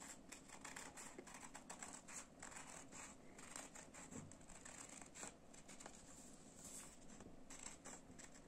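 Scissors cutting a circle out of a folded sheet of green paper: faint, irregular snips and paper rustle.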